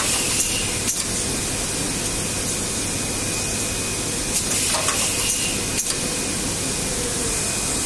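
Automatic eyelet machine running with a steady rushing hiss, broken by sharp clicks about a second in and again near six seconds as its pneumatic eyelet press cycles.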